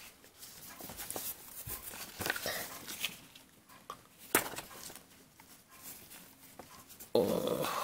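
Paper leaflets and the cardboard packaging being handled: light rustling with a few sharp clicks and taps as the sheets are lifted out of the box. A louder sound comes in near the end.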